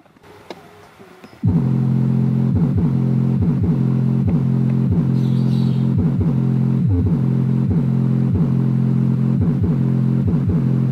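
Subwoofer driven by a TPA3116 D2 class-D amplifier on a 24 V switching power supply, playing a song's bass line loudly with a steady beat. It starts suddenly about a second and a half in and carries only the deep bass and low mids.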